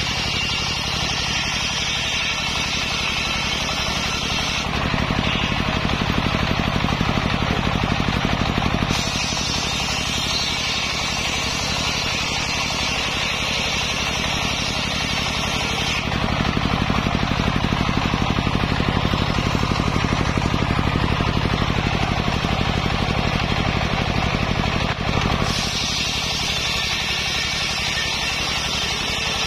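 Table-mounted circular saw ripping sengon (albizia) planks lengthwise, the blade running continuously through the wood. The sound shifts abruptly several times, louder and deeper for stretches beginning about five and sixteen seconds in.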